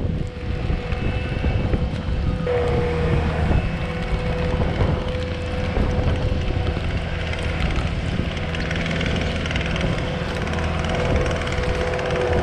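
Diesel engine of heavy snow-clearing equipment running steadily, with a steady whine over it.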